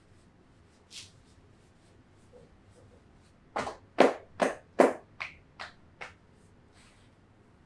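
A run of seven sharp hand slaps on the body from a massage, at a steady pace of about two a second, loudest in the middle and weaker over the last three. There is a faint click earlier.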